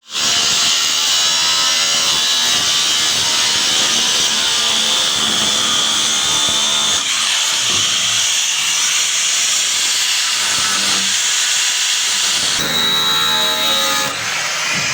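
Angle grinder with an abrasive cut-off disc cutting through steel: a loud, continuous, high grinding hiss that shifts in tone about seven seconds in and again near the end, where a thin steady whine comes through.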